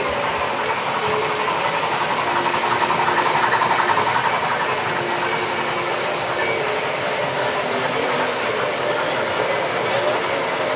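O scale model trains running on a layout, a steady rolling rumble, with a hubbub of visitors' voices in the hall.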